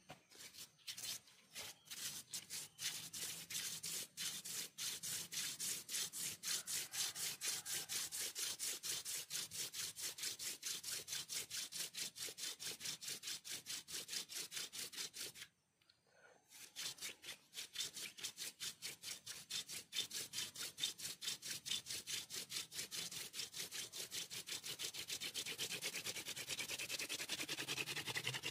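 Hand-drill fire-making: a wooden spindle twisted back and forth between the palms, grinding into an un-notched wooden hearth board in fast rhythmic rubbing strokes, about four a second. The strokes break off for about a second midway as the hands go back to the top of the spindle, then carry on.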